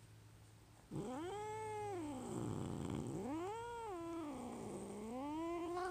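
Domestic cat yowling in one long, unbroken wail that starts about a second in and rises and falls in pitch three times, dipping low in the middle: an angry cat complaining.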